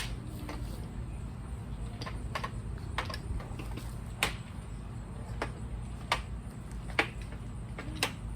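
Irregular sharp clicks and knocks, about a dozen, over a steady low rumble, from digging potatoes out of a grow bag.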